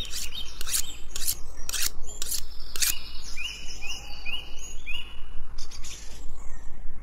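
A knife chopping on a cutting board, six sharp strokes about two a second, then a bird chirping five short falling notes in quick succession, over a steady background hiss.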